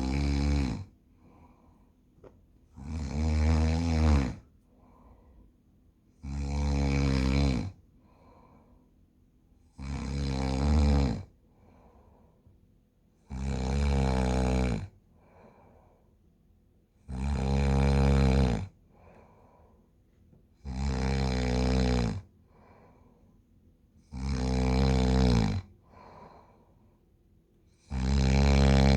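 A sleeping person snoring in a steady rhythm. Each long, pitched snore lasts about a second and a half and comes about every three and a half seconds, with a much fainter breath sound after each one.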